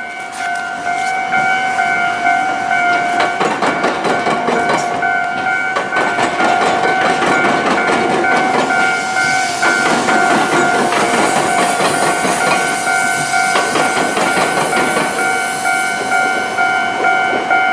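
Railway level-crossing alarm ringing in a steady, pulsing two-tone pattern while an Iyotetsu train passes, its wheels clattering over the diamond crossing where the railway crosses the tram tracks.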